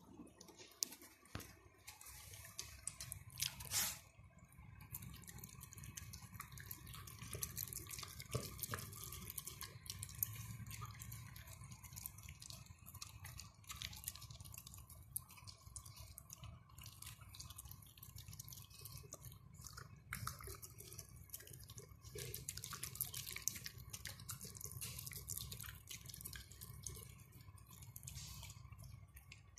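A small dog eating soft chicken, noodles and egg from a stainless steel bowl. Wet smacking and lapping, with a steady stream of small clicks against the bowl.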